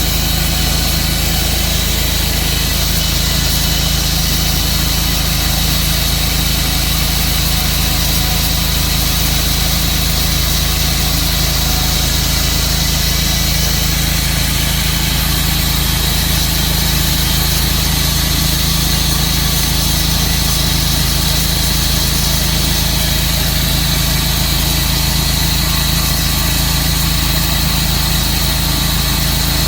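Tru-Cut sawmill running steadily at a constant engine pitch while sawing silver maple.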